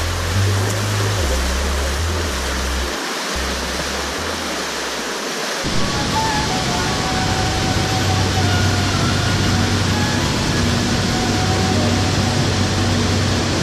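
River water rushing and cascading over boulders in a narrow rock gorge, a steady roar, under background music: deep bass notes at first, switching abruptly a little before halfway to held higher notes over a low hum.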